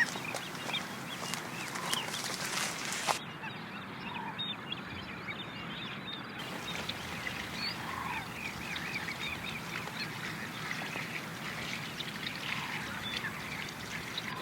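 Birds calling: many short, quick chirps repeating throughout, with a lower call every few seconds and a single sharp knock about three seconds in.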